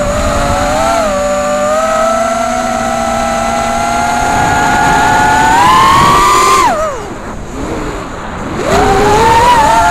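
FPV quadcopter's brushless motors whining, the pitch climbing slowly with throttle. About seven seconds in the whine drops away sharply as the throttle is cut, then climbs back near the end.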